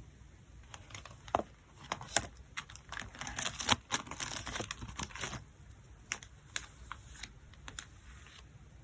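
Photocards and their plastic packaging being handled: a run of light clicks and taps, with a denser stretch of plastic crinkling and rustling about three to five seconds in.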